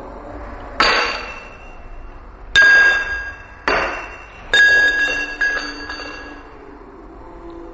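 Coins striking glass jars and glasses: four sharp clinks about a second apart, each leaving a short ringing tone, with a fainter clink after the last.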